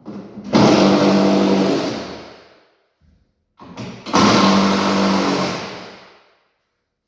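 Wooden shipping pallet and crate being pried and pulled apart: two loud bursts, about half a second in and about four seconds in, each ringing and fading out over about two seconds.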